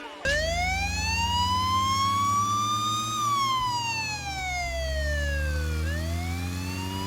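Police siren wailing: its pitch rises for about three seconds, falls for about three, then starts rising again, over a low engine rumble.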